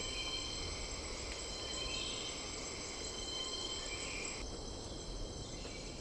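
Steady ambient chorus of insects, a continuous high-pitched chirring with no single caller standing out.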